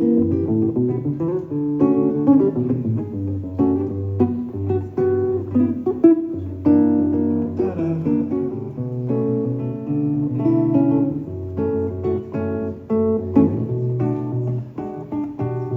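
Acoustic guitar playing chords in an instrumental passage, with low bass notes under plucked and strummed chords and no singing.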